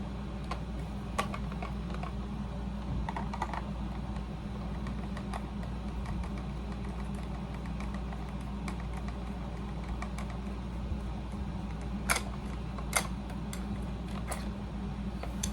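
Scattered light clicks and ticks of a screwdriver working on a plastic toy blaster, with two sharper clicks near the end, over the steady hum of a room air conditioner.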